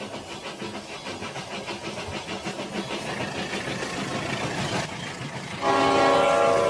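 Toy trains running on plastic track, a steady rattle with quick regular clicking. About two thirds of the way through, a loud train horn starts and holds.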